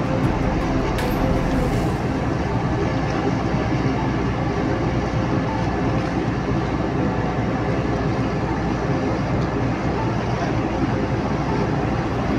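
Marine engines running steadily at close range, with a faint steady hum, mixed with water churning against the hull as a pilot boat holds alongside a ship.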